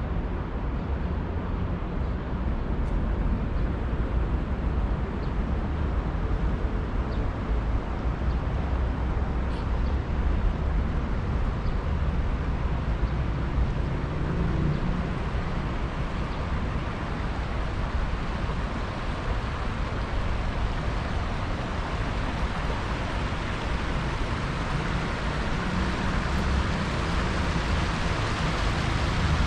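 Steady city street ambience: a continuous low traffic rumble, with a broader hiss that grows a little louder over the last third.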